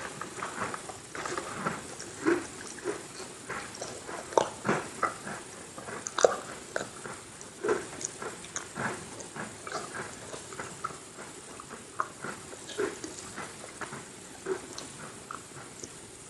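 Close-up chewing of crunchy Halloween Oreo sandwich cookies: a run of irregular crisp crunches.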